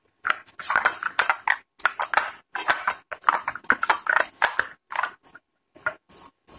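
Hands greased with ghee kneading and squeezing a soft bread-and-milk-powder dough in a glass bowl: irregular short sticky squishes, several a second, growing sparser near the end.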